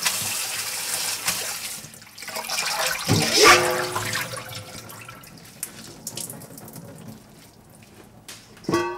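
Tap water running into a stainless steel bowl as blanched minari greens are rinsed by hand, then a splash about three seconds in as the water is poured off the tipped bowl to drain. After that, quieter rustling and dripping as the wet greens are handled.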